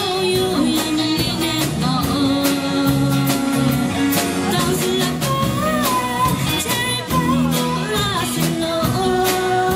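A woman singing into a microphone, backed by a live band of guitars, bass guitar and drum kit playing a steady beat.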